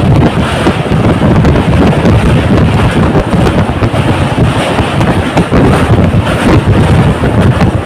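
Loud wind buffeting the microphone at an open train window, over the rumble of the train running across a steel truss bridge.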